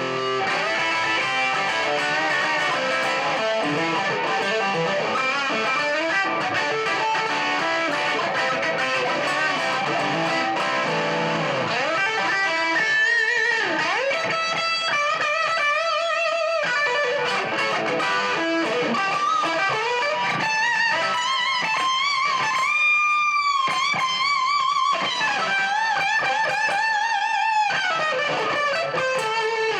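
Career Les Paul electric guitar played through distortion as a lead solo. It starts with fast runs of notes, then from about halfway through moves to long sustained notes with wide vibrato and string bends.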